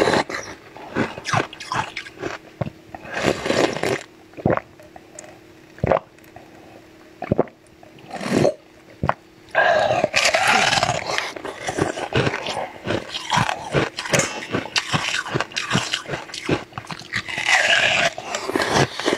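Close-miked eating sounds of a blue ice ball: sharp crunches as it is bitten and chewed, mixed with wet sucking and slurping.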